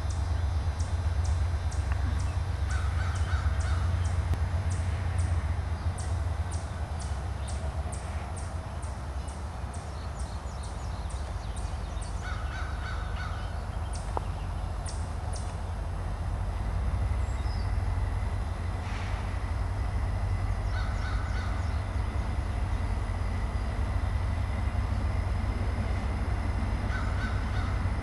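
Low, steady rumble of an approaching diesel freight train's locomotives, still some way off. Birds call over it: quick high chirps in runs, and a short call repeated several times.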